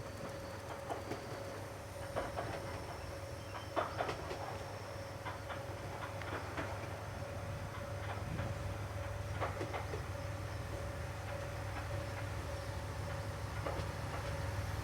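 A train running on the line: a steady low hum with a constant thin whine, and scattered irregular clicks and knocks, the loudest about four seconds in and again near the middle.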